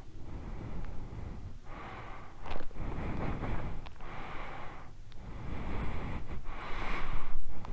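A person breathing heavily close to the microphone, about six breaths in a row, each roughly a second long, the last ones the loudest, over a low rumble of wind on the microphone.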